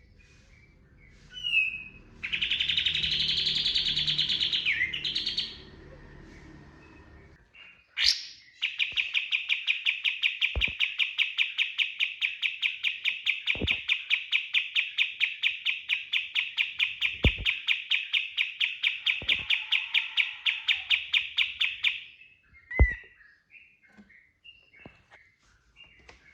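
Kapas tembak songbird singing. A loud trill runs for about three seconds, then a quick rising note, then a long run of rapidly repeated, even notes lasting about thirteen seconds: the bird's prized 'tembakan' (shot) burst. A few soft knocks sound during the long run.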